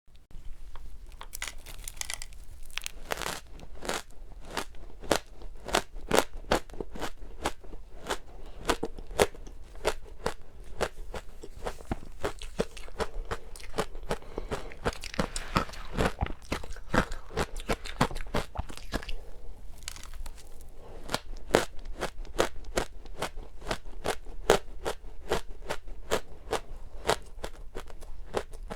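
Close-up chewing of powdery matcha ice: a steady run of crisp crunches, several a second.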